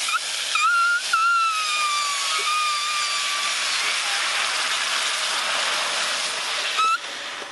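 Water from a garden hose spray nozzle hitting a hot cast-iron skillet and flashing to steam, a loud steady hiss as the pan is deglazed for gravy. A high whistle at the start slides down and fades over the first few seconds, and the hiss drops off with a short whistle near the end.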